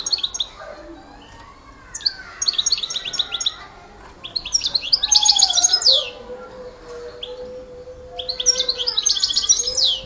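European goldfinch singing in the Sidi Youcef song style: three bursts of rapid, high twittering trills, with short pauses and softer gliding notes between them.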